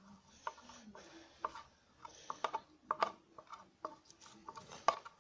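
A utensil clicking and scraping against a bowl as slime is stirred, in irregular taps, some of them briefly ringing.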